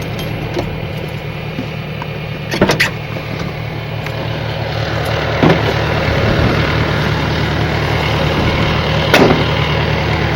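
An engine running steadily at a low, even speed and slowly growing louder, with three short sharp knocks or clunks spread through it.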